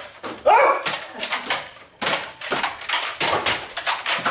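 Rapid, irregular clicks and snaps of Nerf blasters firing and foam darts striking, with a brief shout about half a second in.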